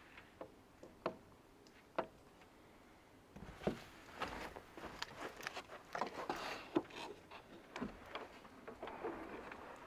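Faint handling noises: a few light clicks, then from about three seconds in a busy run of knocks, rustles and crunching steps in snow as the wooden door of a homebuilt smoker is opened.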